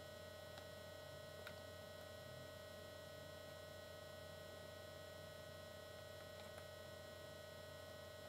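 Near silence with a steady electrical hum in the recording and a couple of faint ticks.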